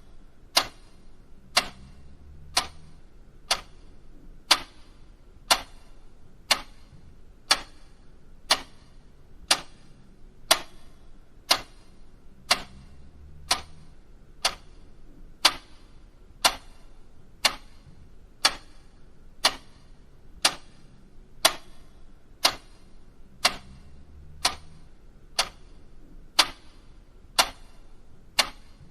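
Mechanical clock ticking steadily, one sharp tick a second.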